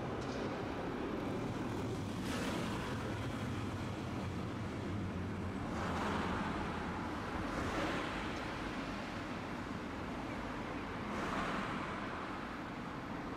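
Street traffic at a tram stop: a steady low hum that fades after a few seconds, with several vehicles swelling past one after another.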